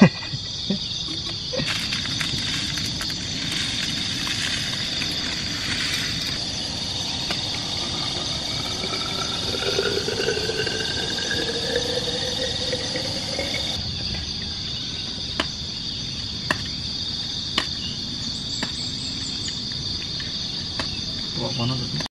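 A steady, shrill chorus of insects, with water poured into a vessel in the middle, its pitch rising as the vessel fills. A few sharp clicks of utensils follow near the end.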